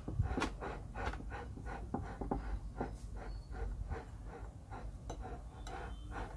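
Handling noise: a string of irregular soft clicks and brief rustles, a few each second, as a plate is held and turned by hand, over a low steady hum.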